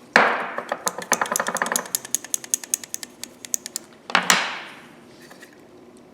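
Aerosol spray can, likely WD-40, hissing in a short burst as penetrant is sprayed onto rusty pliers. A quick run of metallic clicks follows, about three seconds long, then a second spray burst.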